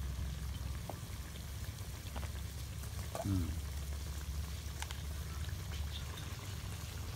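Chicken pieces frying in oil in a large wok over a wood fire: a steady sizzle over a low rumble, with a few light clicks and a short falling cry about three seconds in.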